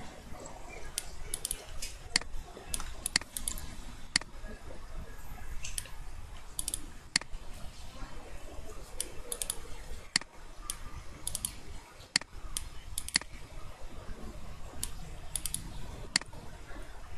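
Computer mouse clicking, single and double clicks about once or twice a second, as the points of a freehand mask are placed one by one in video-editing software, over a low steady hum.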